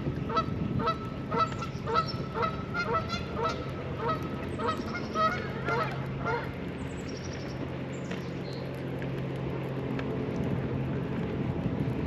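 Geese honking, a quick run of short calls about two or three a second that stops about halfway through. A steady low hum carries on underneath afterwards.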